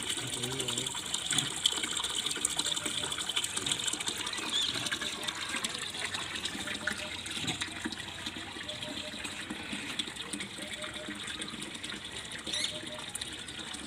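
Water gushing from a hose into a partly filled plastic water tank, a steady splashing fill.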